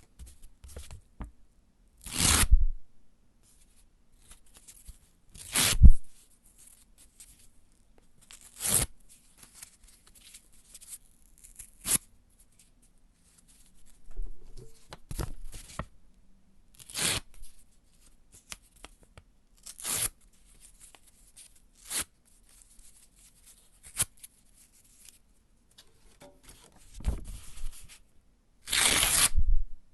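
Paper being ripped and torn by hand in a string of separate tears, some short and sharp, some drawn out, with softer rustling and crinkling of the paper between them. The loudest rips come about two, six and nine seconds in, and a longer tear comes near the end.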